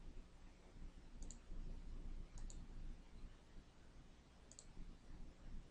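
Three faint computer mouse clicks, each a quick double tick, spread over a few seconds above low room noise.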